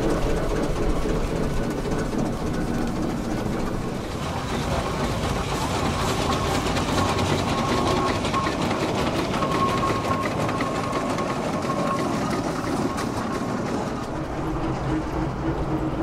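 Steam traction engine running, with a steady rapid mechanical clatter from its motion and gearing.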